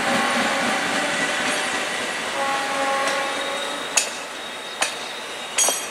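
Electric multiple unit local train running past on the rails, a steady rush of wheel noise with faint tones coming and going, slowly fading. Near the end, three sharp knocks about a second apart.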